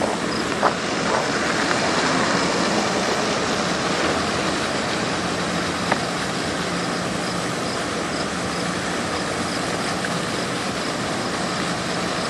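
Steady mechanical drone with an even low hum running under it, and a couple of faint clicks.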